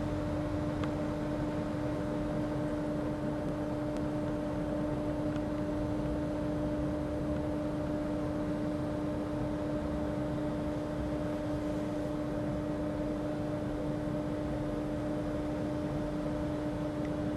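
Stadler FLIRT electric multiple unit: a steady electrical hum at one constant pitch over a low rumble.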